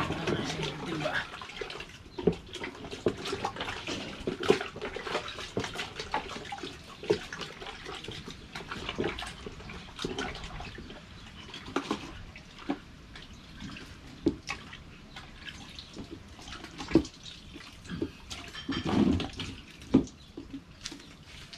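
A large octopus being rubbed and squeezed by hand in a plastic bucket of water to work off its slime: wet squelching and sloshing with irregular short slaps. A little before the end it is hauled up out of the bucket, water splashing off it.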